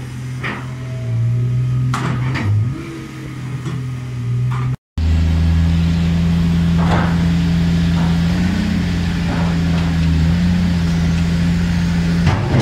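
Heavy diesel machinery running steadily under load, with scattered metal clanks of scrap steel. The drone shifts pitch a few times in the first seconds, breaks off abruptly about five seconds in, then resumes as a steadier, lower drone with a few more clanks.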